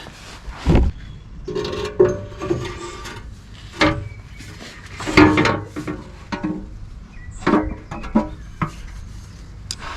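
A new oil pan being manoeuvred up into place against a Toyota Starlet's engine block: a series of irregular knocks, bumps and scrapes as it is positioned against the block.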